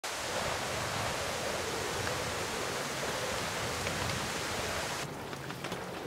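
Heavy rain falling, a steady dense hiss. About five seconds in it changes to a thinner patter with single drops ticking on leaves.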